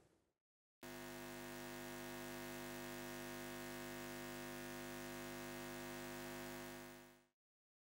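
Faint, steady hum made of several held tones, starting about a second in and fading out near the end.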